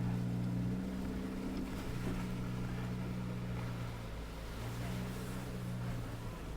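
Suzuki Jimny JB74's 1.5-litre four-cylinder engine pulling at steady low revs as the car crawls slowly up a steep off-road climb, a low even hum with brief dips.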